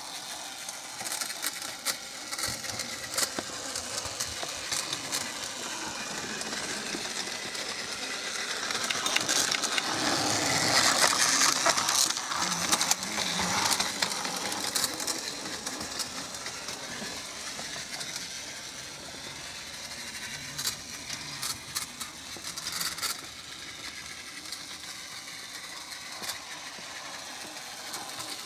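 Battery-powered Plarail toy trains running on plastic track: small electric motors and gears whirring, with scattered clicks and rattles. The whirring swells for a few seconds around the middle.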